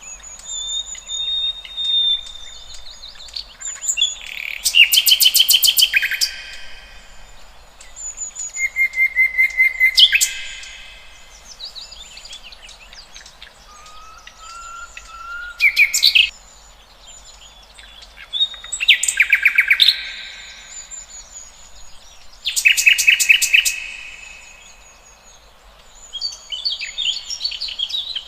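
Several wild songbirds singing. Loud, rapid trilled phrases come every few seconds, with thin high notes and short whistles between them.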